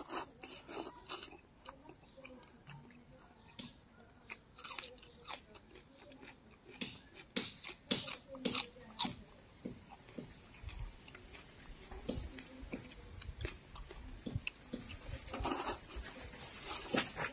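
A person eating soupy noodles by hand with close mouth sounds: wet chewing and lip smacks, noodles being slurped in, and a crunchy bite into a raw green chili about eight seconds in.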